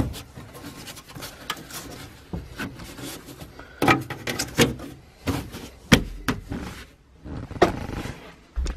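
Molded floor carpet of a Toyota pickup being pressed and shifted into place: rustling and scraping, broken by a run of sharp clicks and knocks as its edge clips are pushed onto the body lip. The loudest knocks come about two-thirds of the way through.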